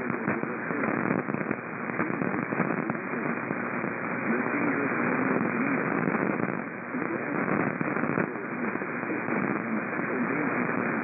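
AM radio static: a steady hiss with scattered crackles, and a faint, wavering voice barely audible beneath it.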